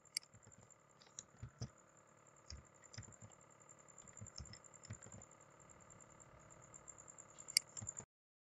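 Faint computer keyboard taps and mouse clicks, scattered and irregular with a few sharper clicks, as tab keys are pressed to line up text in a document.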